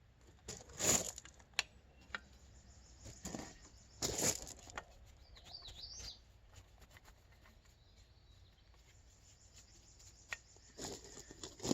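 Short bursts of scrubbing or spraying noise from cleaning work on a folding bike, the two strongest about a second in and about four seconds in, with light clicks and scuffs between. Faint high bird chirps come in around five to six seconds in.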